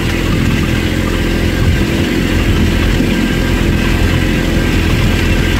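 Compact Kubota BX-series tractor's three-cylinder diesel engine running steadily while the tractor drives, heard close up from the operator's seat.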